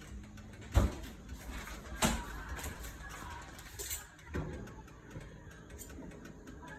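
A few sharp knocks of kitchenware against a cooking pan, the first the loudest, spaced a second or two apart, over low steady background noise.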